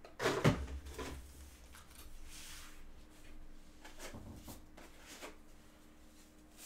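Light handling of trading-card boxes and packs: a sharp knock about half a second in, a soft rustle in the middle, and another knock about four seconds in.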